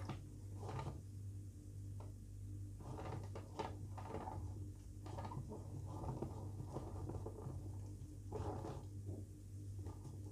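Metal offset spatula spreading and smoothing a thin layer of cream over a sponge cake layer, making soft, irregular scraping strokes over a steady low hum.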